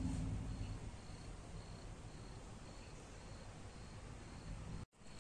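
A cricket chirping faintly at an even pitch, about twice a second, over quiet room tone. The sound drops out completely for a moment near the end.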